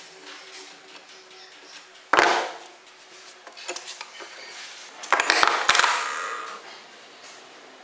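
Steel hand tools, a tap wrench and a ratchet wrench, set down on a workbench: one sharp metallic clank about two seconds in that rings briefly, then a cluster of several clanks and rattles around five to six seconds in.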